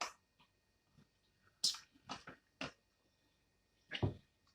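Close-up eating sounds: six short, sharp crunches and mouth clicks, spread unevenly through the few seconds, with quiet between them.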